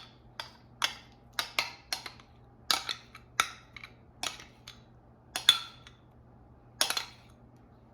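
A spoon clinking and scraping against a bowl in irregular sharp taps, roughly two a second, as thick creamy horseradish sauce is spooned out into a serving dish.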